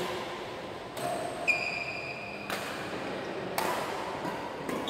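Badminton rally: a shuttlecock struck sharply by rackets about once a second, five hits in all, with a short high squeak of a shoe on the wooden court about a second and a half in.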